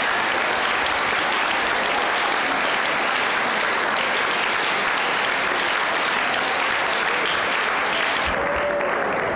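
Audience applauding steadily at the end of a brass band piece; about eight seconds in the crisp top of the clapping drops away abruptly.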